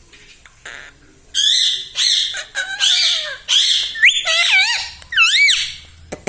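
Pet ringneck parakeet calling: after a quiet second, a run of loud, harsh screeches, then several whistled notes that swoop up and down.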